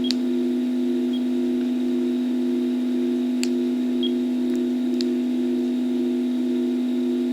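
Steady electronic hum at two low pitches, picked up as abnormal noise on a video camera's audio. A few faint, very short high beeps and three or four sharp clicks are scattered through it, typical of radiation counters chirping.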